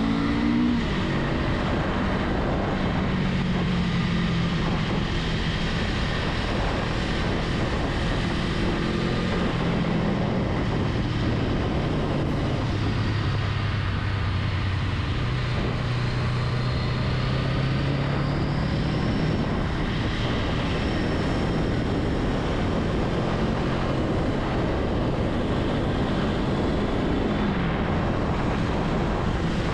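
Honda Rebel 500's parallel-twin engine running under way, its pitch drifting slowly down and back up as the speed changes, over a steady rushing noise.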